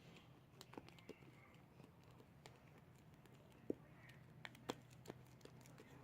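Freshly activated fluffy slime being mixed, giving faint, irregular sticky clicks and small pops, two of them sharper near the middle and later on, over a faint low hum.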